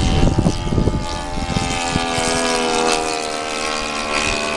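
Radio-controlled model airplane in flight, its motor and propeller giving a steady whine that drifts slightly down in pitch. Low buffeting on the microphone in the first second.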